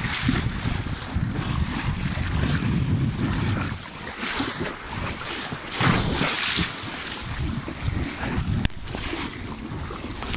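Wind buffeting the microphone over the splashing of horses wading through shallow seawater, with one sharp knock near the end.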